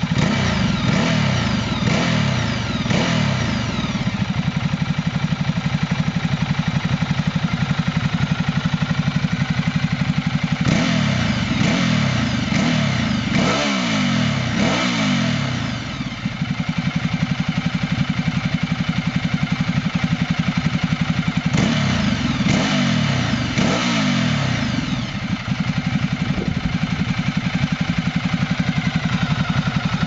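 Ducati Multistrada 1200's twin-cylinder engine idling, blipped in short revs a few times: once just after the start, several quick revs in the middle, and again a little later, each rising and falling back to idle.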